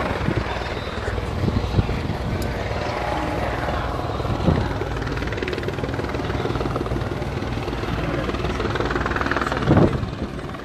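Steady low engine drone with a crowd's voices underneath, and a short loud bump near the end.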